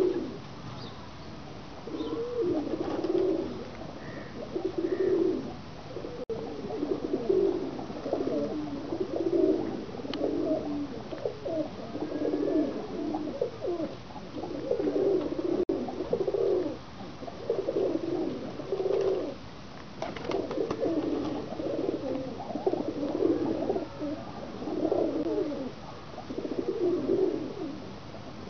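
Domestic pigeons cooing over and over, low rolling coos that follow one another almost without a break.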